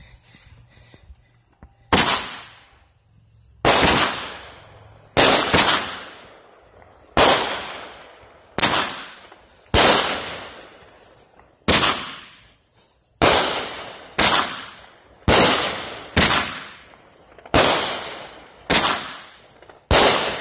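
Consumer firework cake firing shot after shot: about fifteen loud bangs roughly a second apart, starting about two seconds in, each trailing off before the next.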